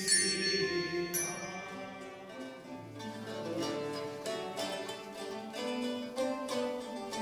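Medieval lutes playing a melody of quick plucked notes, which take over about two and a half seconds in. They follow a few bright ringing strikes, as of small bells, in the first second or so.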